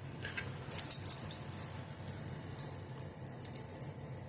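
Keys jangling: a run of light metallic jingles and clicks for the first couple of seconds, then a few more scattered ones.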